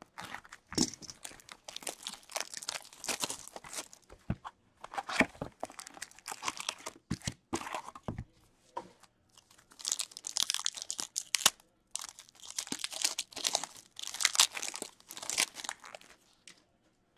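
Plastic shrink-wrap crinkling as it is torn off a hockey card box, then a wrapped card pack crinkling as it is torn open, in bursts with short pauses.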